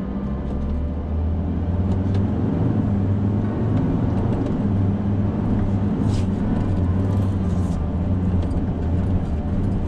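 Six-wheeler truck's engine running steadily on the move, a low drone with a few light rattles.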